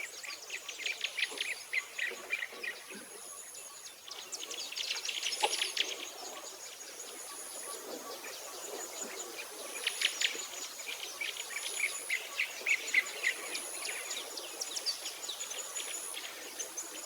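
Birds singing in quick chirping trills, coming in clusters, over a thin, very high insect trill that repeats in short spells about once a second.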